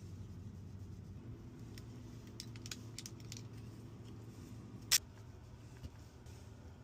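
Scattered small clicks and taps of tools and parts being handled during an iPhone screen repair, with one sharper click about five seconds in, over a low steady hum.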